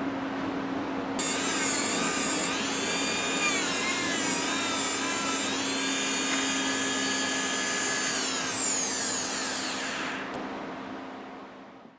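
Electric power tool switched on about a second in, running with a high whine that dips in pitch a couple of times as it works the coin ring, then switched off and spinning down in a long falling whine.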